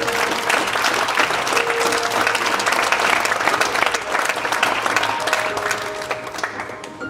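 Audience clapping, swelling about half a second in and fading near the end, over background music.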